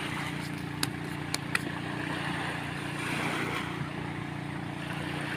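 A steady low motor drone, with three short sharp clicks about a second in.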